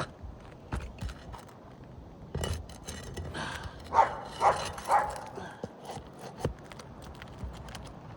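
A dog barks three times in quick succession about four to five seconds in, among scattered light knocks and scrapes.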